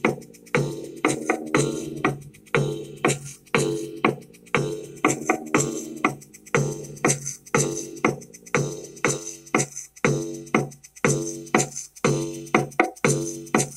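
Drum-machine beat from an Akai XR20 beat production center at 120 BPM: steady percussive hits about twice a second, with a repeating pattern of low pitched notes underneath.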